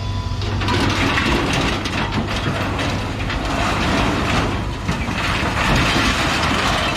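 Heavy scrapyard machinery with its engine running under a loud, continuous clatter and rattle of scrap metal, which starts about half a second in.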